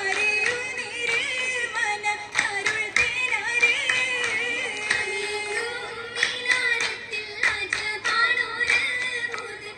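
Oppana: a Mappila song sung by a group of voices with the dancers' sharp hand claps in time, the claps coming thicker from about six seconds in.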